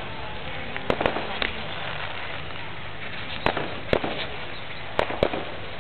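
Fireworks going off: a scattering of sharp bangs at uneven intervals, two or three coming close together, over a steady outdoor background noise.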